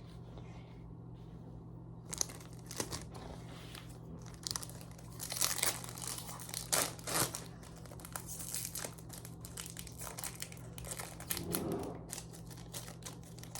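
Foil wrapper of a Japanese Pokémon card booster pack being crinkled and torn open, with irregular rustling and crackling from about two seconds in, over a steady low hum.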